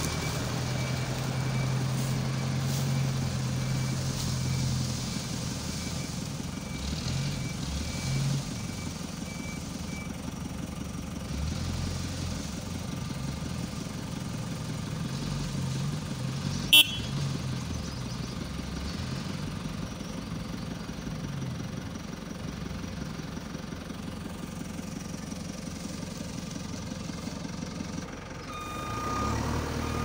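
Engine of a small Daihatsu Delta dump truck running steadily as the loaded truck drives off, growing slightly fainter. One brief, sharp sound cuts through about two-thirds of the way in.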